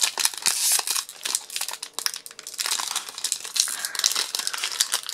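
Foil Magic: The Gathering collector booster pack wrapper crinkling and crackling as it is torn open by hand, a wrapper whose seal sticks as if glued shut.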